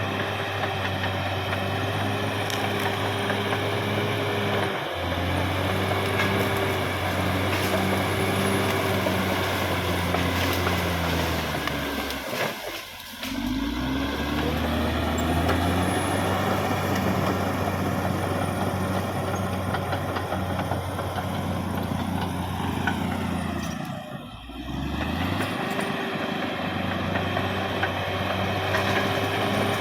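Caterpillar D6R XL bulldozer's diesel engine running steadily under load. Twice the engine note briefly drops away, then climbs back up.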